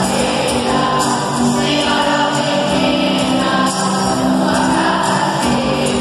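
A group of voices singing with musical accompaniment, the notes held and changing about every second.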